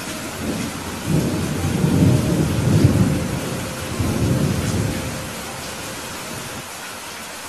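Steady rain with a long roll of thunder that builds about a second in and rumbles away over the next few seconds.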